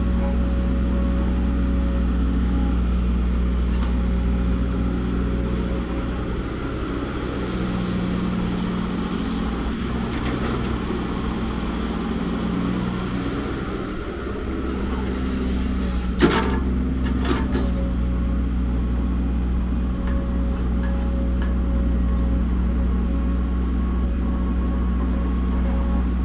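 Caterpillar E120B excavator's diesel engine running steadily, its note shifting for a few seconds in the middle as the work load changes, with two sharp knocks a second apart about two-thirds of the way through.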